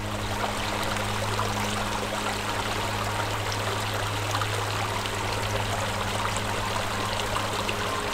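Shallow garden stream flowing over rocks and a small cascade: a steady rush and trickle of running water, with a steady low hum underneath.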